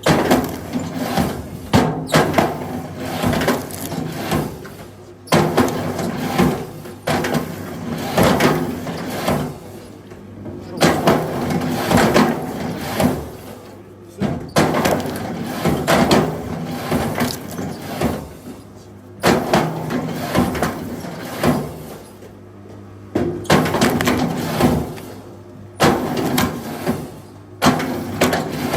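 Firewood being worked: a sharp wooden knock every two to four seconds, each fading away, over a steady low hum.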